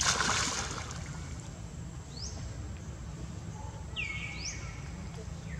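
A splash as a swimming monkey thrashes through pool water, then a few short falling whistled bird calls, over a steady low rumble.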